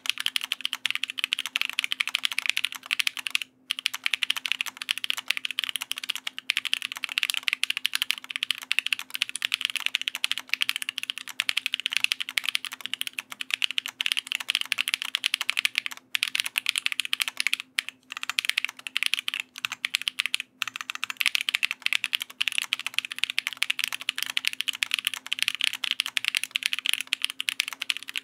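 Continuous fast typing on a YETI mechanical keyboard with Amethyst Tactile switches, GMK keycaps and an aluminium half-plate with no dampening: a dense stream of keystroke clacks, broken by a few short pauses.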